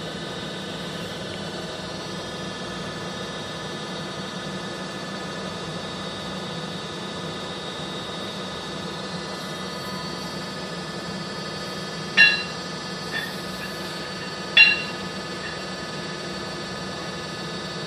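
Hydraulic universal testing machine humming steadily while it pulls a steel rebar in a tensile test. Two sharp ringing clicks come late on, about two and a half seconds apart.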